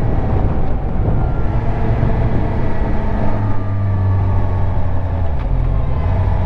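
Suzuki GSX-R750's inline four-cylinder engine running steadily under way, its pitch easing slightly down in the middle, with wind rushing over the microphone.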